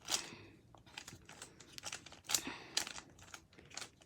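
A 3x3 Rubik's Cube being turned by hand: irregular plastic clicks and scrapes as its layers rotate, with a few louder snaps about two to three seconds in.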